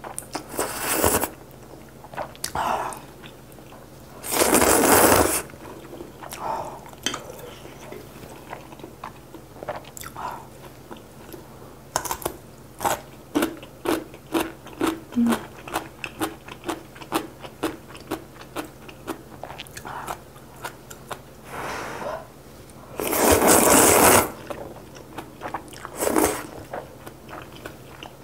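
Close-miked eating sounds: long slurps of soupy kalguksu noodles, each about a second long, near the start, about four seconds in and about 23 seconds in. Between them comes a quick run of crunchy chewing clicks from biting into young radish kimchi.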